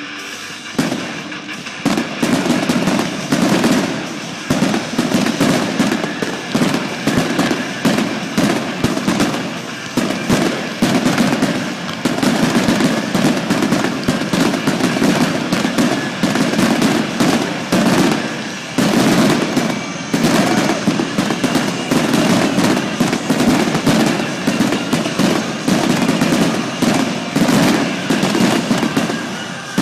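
Fireworks display in full barrage: a dense, unbroken run of bangs and crackles, many bursts a second. It starts about a second in.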